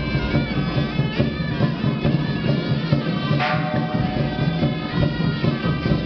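Loud procession music: a held, reedy wind-instrument melody over steady drums and percussion, with a brief crash a little past halfway.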